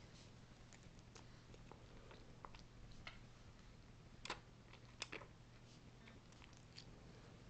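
A toddler biting and chewing on a nectarine: faint wet mouth clicks and smacks, the two loudest about four and five seconds in.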